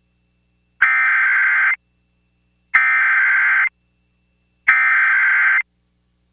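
Emergency Alert System SAME header: three identical bursts of warbling two-tone digital data, each about a second long and spaced about a second apart. These data bursts open an EAS alert and encode its originator, event type, areas and timing.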